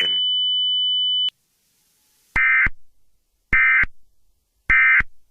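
A steady high electronic tone that cuts off about a second in, then three short buzzing data bursts about a second apart: Emergency Alert System SAME end-of-message tones, signalling that the alert message is over.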